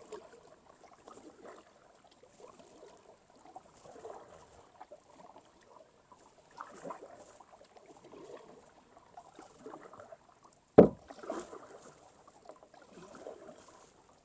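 Kayak paddle strokes dipping and swishing through calm water at an unhurried, uneven pace, with one sharp knock a little after ten seconds in.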